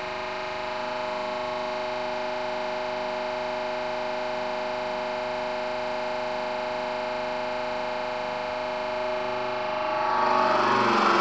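Hydraulic press running as its ram descends and squashes a Play-Doh figure: a steady hum of several held tones, getting louder and rougher about ten seconds in as the ram bottoms out.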